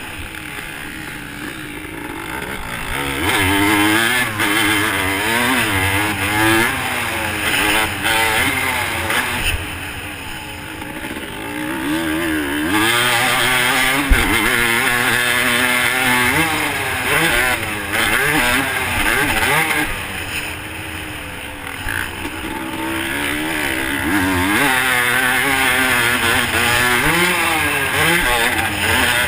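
Dirt bike engine heard up close from the rider's own camera, revving up and down as it is ridden hard, with three quieter spells off the throttle. One sharp knock about halfway through.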